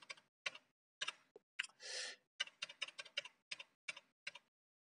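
Computer keyboard keys tapped in quick succession: a run of faint clicks with a short pause about a second in, a brief soft hiss near two seconds, and the fastest run of taps in the second half.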